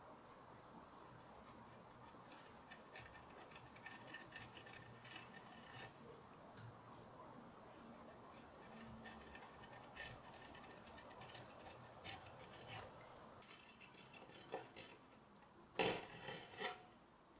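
Hand carving gouge cutting into walnut: faint scraping and small clicks in clusters, with a louder burst of cuts near the end.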